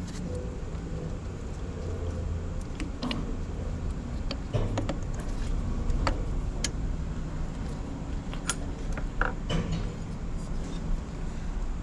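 Hand work on the fittings of a mini excavator's hydraulic main pump valve: scattered small metallic clicks and taps at irregular intervals, over a steady low rumble.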